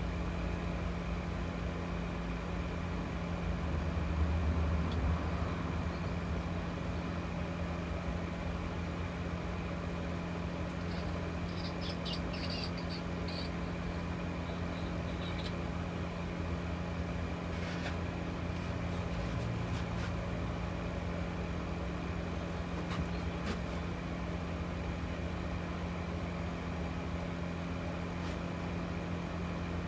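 A steady low mechanical hum that does not change, with a few faint light clicks and taps partway through.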